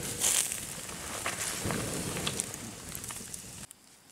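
Wood campfire crackling and hissing, with scattered sharp pops and a louder burst near the start; the sound drops off abruptly near the end.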